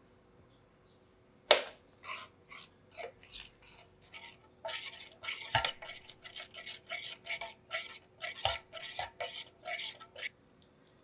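A metal spoon stirring sauce in a stainless steel skillet, scraping and clinking against the pan over and over. The loudest sound is one sharp clink about a second and a half in.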